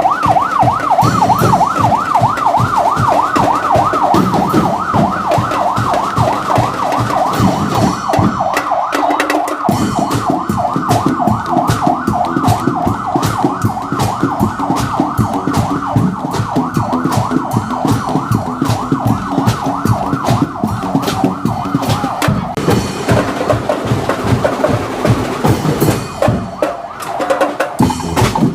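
Background music: an electronic dance track with a fast-warbling, siren-like synth over a steady drum beat.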